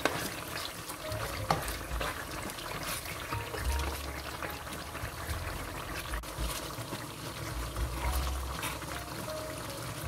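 A plastic spoon stirring thick, wet tomato and onion sauce in a nonstick pan: soft sloshing with small clicks of the spoon against the pan.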